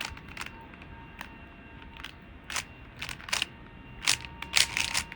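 Rubik's Cube being turned by hand: irregular plastic clicks and clacks as the layers are twisted, in short flurries with pauses between.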